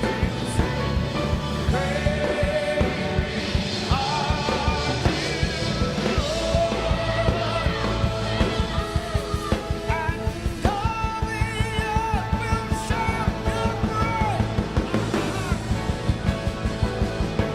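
Worship band music with a steady drum beat and long held melody notes.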